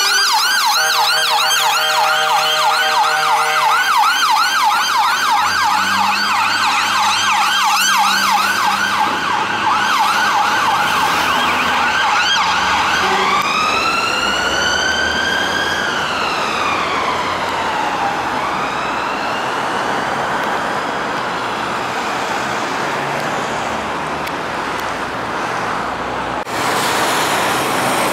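Dennis Sabre XL fire engine's siren: a wail rises, then switches to a fast yelp of about three sweeps a second with a steady horn note for about three seconds near the start. About 13 s in it changes to one slow wail rising and falling, fading away into traffic noise. Near the end a lorry's engine is heard passing close.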